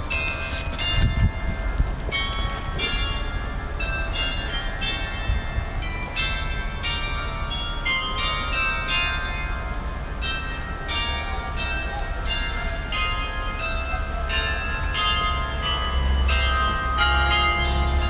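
Church tower bells ringing a tune: strikes at several pitches, about two a second, each ringing on into the next.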